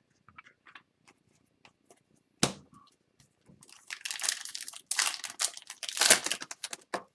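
A sharp knock about two and a half seconds in, then loud crinkling and tearing of a foil trading-card pack wrapper being ripped open, with light clicks of cards being handled at the start.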